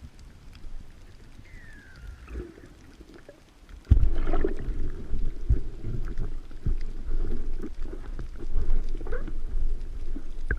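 Underwater sound of water moving against a submerged camera: quiet at first with one short falling squeal, then from about four seconds in a louder low rumble with knocks and gurgles.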